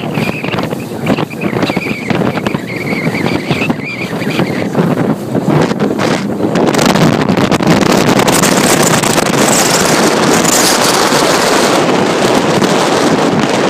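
Wind buffeting the microphone over the steady run of a Suzuki DF140 four-stroke outboard and rushing water as the RIB motors along. About six seconds in the wind noise grows louder and stays steady; a faint wavering high tone is heard over the first few seconds.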